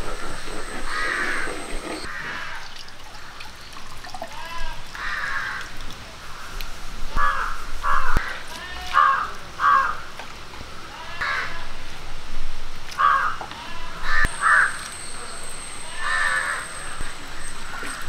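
Crows cawing over and over, harsh calls every second or two, some in quick pairs. Under them, wet squelching and pouring as grated coconut is squeezed by hand in water to press out coconut milk.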